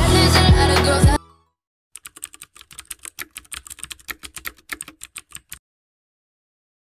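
Music with a beat cuts off about a second in. After a short gap comes a typing sound effect: a fast, uneven run of keyboard clicks lasting about three and a half seconds, then it stops.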